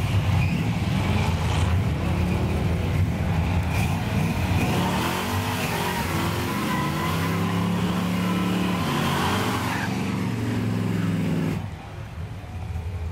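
Drag-racing vehicle engine at full throttle accelerating down the strip, its pitch climbing and dropping back in steps as it shifts gears. The engine sound cuts off abruptly shortly before the end, leaving quieter background noise.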